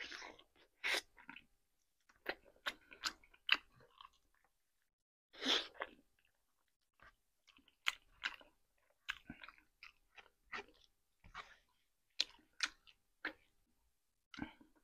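Close-miked chewing and lip smacking while eating rotisserie chicken by hand: a string of short, irregular mouth clicks and smacks, with a longer burst about five and a half seconds in.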